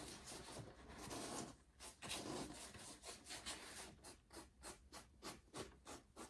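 Faint, quick strokes of a small paintbrush scrubbing black paint into the textured surface of an EVA foam top hat, settling into a regular rhythm of about three strokes a second.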